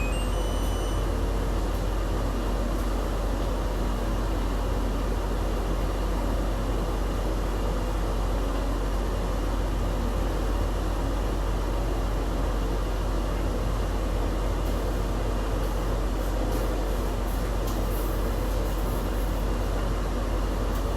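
Steady mechanical hum with a strong low drone and even hiss, unchanging throughout, with no beeps or other distinct events.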